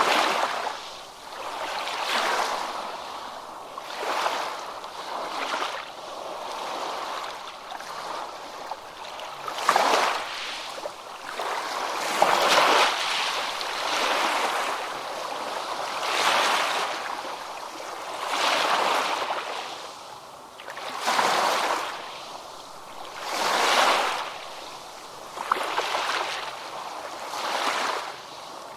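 Ocean waves breaking and washing in, each surge swelling and falling away every two to three seconds, with rippling water between them.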